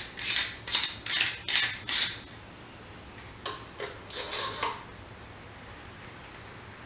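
Metal screw threads rasping as a 0.5x focal reducer is twisted onto the NexImage 5 camera's nosepiece, about two scraping strokes a second. The strokes stop a little over two seconds in. A few small metallic clicks and a brief rattle follow as the camera is seated.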